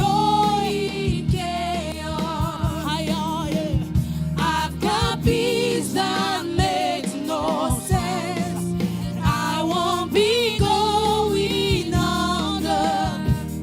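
Gospel choir singing a worship song with vibrato, over a band with drums.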